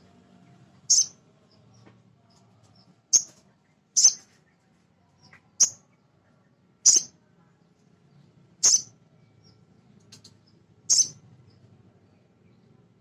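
Male little spiderhunter (sogon) giving seven short, sharp, high-pitched chip calls, spaced irregularly a second or two apart.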